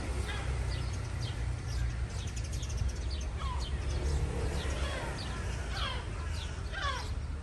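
Several birds chirping with many short, quick calls and a few lower falling ones, over a steady low rumble.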